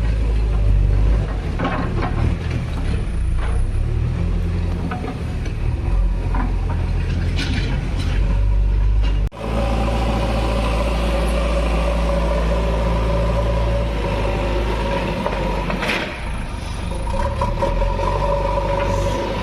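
JCB 3DX backhoe loader's diesel engine running steadily, with a few short knocks. A break about nine seconds in, after which a steady whine sits over the engine.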